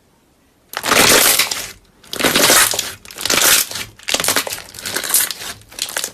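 Slime being squeezed and pressed by hand in several loud bursts, each about a second long and full of fine crackles.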